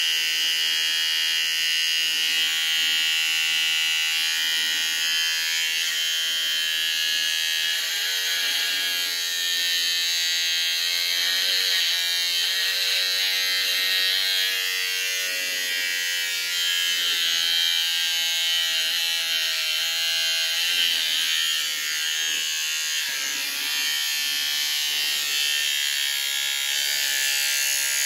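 Wahl electric beard trimmer buzzing steadily as it trims beard hair, its pitch wavering now and then.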